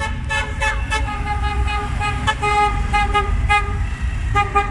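Car horns tooting from vintage cars pulling away in a parade: a rapid string of short beeps, with a few longer ones near the end, over the low rumble of engines.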